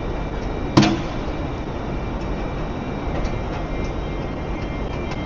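Steady background rumble and hiss, with one sharp knock about a second in.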